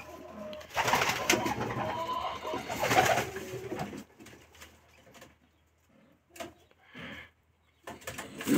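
Domestic pigeons cooing, mixed with rustling and handling noise as a squab is lifted from a straw nest. The sound falls away about four seconds in, leaving only a couple of short faint sounds.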